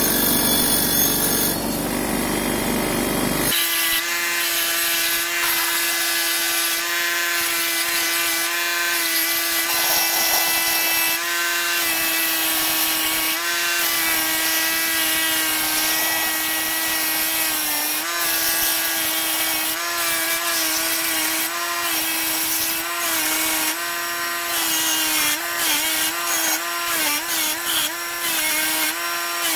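Bench grinder running with a steady hum while a brass bell is held against its spinning wire wheel, the bristles scratching and rasping over the metal. The hum dips and wavers now and then, most near the end. The first few seconds hold a different, denser noise.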